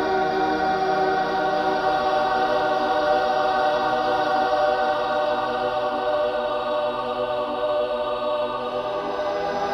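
Slow ambient soundtrack music of long, held chords that barely move.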